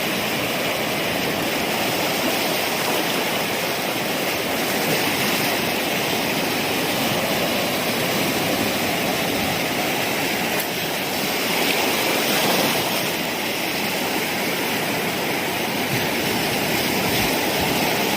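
Steady rushing noise of a rough sea, holding at one level without breaks.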